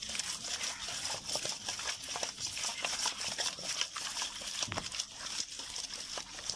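Hands rubbing cleaned fish with salt in a metal bowl of water: a steady wet squelching and scrubbing made of many small clicks and splashes.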